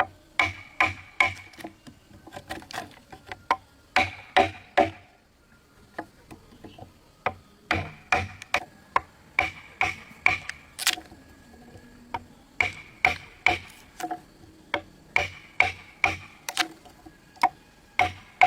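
Hammering on wood: runs of sharp, quick blows, two to three a second, with short pauses between runs and a longer pause about five seconds in.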